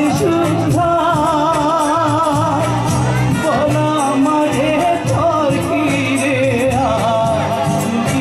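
A man singing a song into a handheld microphone with instrumental accompaniment, holding long notes with a wavering vibrato.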